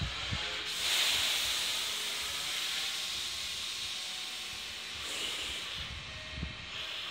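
Compressed air hissing out from a Meitetsu 3200-series electric train's pneumatic system: a sudden hiss about a second in that fades slowly over several seconds, and a second, shorter hiss about five seconds in.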